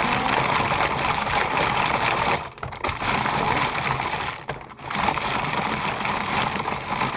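Tupperware Chef Pro chopper being spun by hand, its blade crunching and rattling through Oreo cookies as they break into crumbs. It runs in three long spells with two short pauses.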